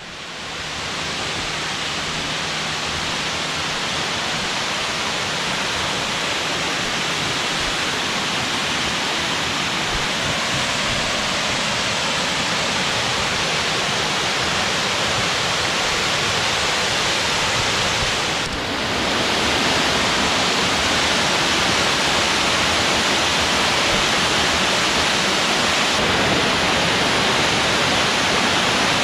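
Waterfall rushing loudly and steadily, swollen after a night of heavy rain. The roar gets louder just after the start and again after a brief dip about two-thirds through.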